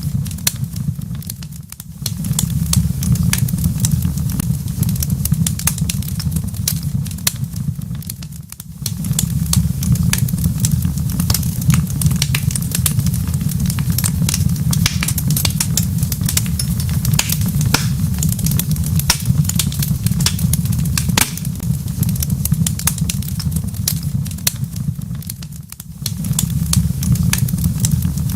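Wood fire crackling in a fireplace, with dense sharp pops and snaps over a steady low rumble that fades briefly three times.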